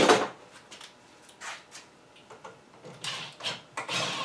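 A sharp clatter at the start, then light knocks and handling clicks. Near the end a cordless drill-driver starts up with a whine as it drives a screw into an electrical outlet.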